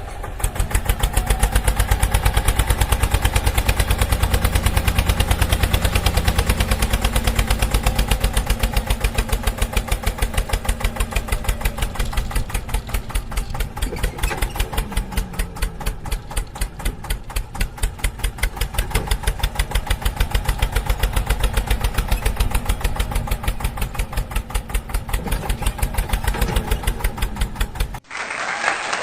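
Tractor engine running with a fast, even chugging, cutting off abruptly near the end.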